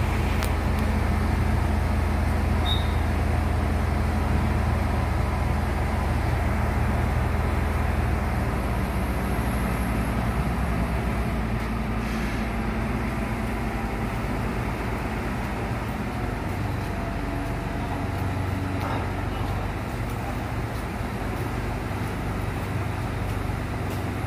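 Diesel engine of a truck-mounted Hiab crane running steadily, driving the crane's hydraulic pump while it handles a load. The low drone eases a little about a third of the way in.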